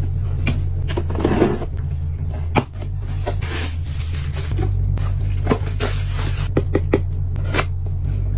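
Unboxing handling sounds: bubble wrap crinkling as it is pulled from a cardboard box, and scrapes, taps and clicks of cardboard flaps and packaging. A steady low hum runs underneath.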